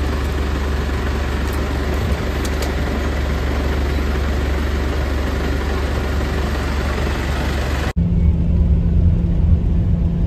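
Steady engine and road noise of a moving vehicle, heard from inside. About eight seconds in it cuts abruptly to a lower, uneven engine rumble.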